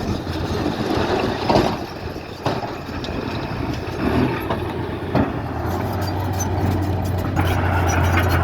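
Heavy diesel construction machinery running, with several sharp clanks of metal. Near the end the engine note steadies and grows louder.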